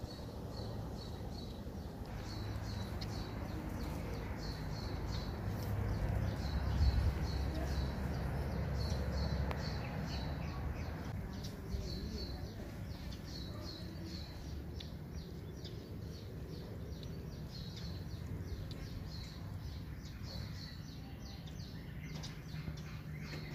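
Small bird chirping over and over in quick runs of short, high notes, over a low rumble that swells for a few seconds near the middle.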